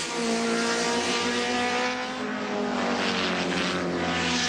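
Group A touring car engines running hard at racing speed, a steady multi-tone engine note whose pitch shifts and glides about two seconds in.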